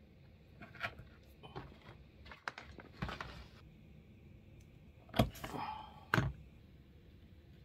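A leather knife scraping and cutting along a worn leather bag handle on a wooden workbench. It is broken by several knocks, the two sharpest about five and six seconds in, with a scrape between them.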